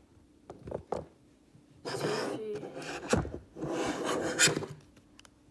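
SOG multi-tool being opened by hand: a few light clicks, then two stretches of metal sliding and rubbing as the handles swing open, with a knock between them.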